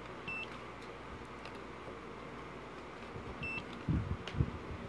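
Digital multimeter beeping twice briefly, about three seconds apart, as it is set up to measure resistance, with a couple of low handling thuds near the end.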